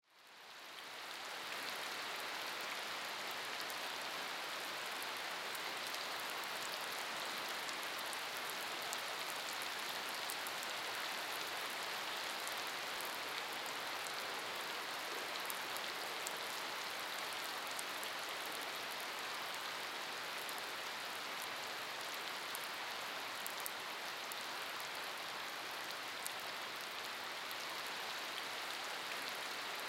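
Heavy summer rain falling steadily: an even hiss scattered with fine drop ticks. It fades in over the first second or so, then holds steady.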